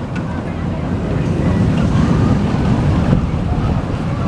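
Vekoma steel looping roller coaster train running along its track: a loud, steady low rumble.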